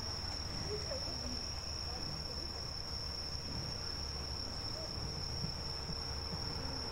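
Night insects, crickets, trilling one steady high note without a break, over a low steady rumble from the rail yard.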